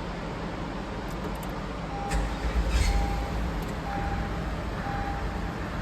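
Electronic warning beeper sounding a single-pitched beep about once a second, over steady background noise, with a low rumble about two seconds in.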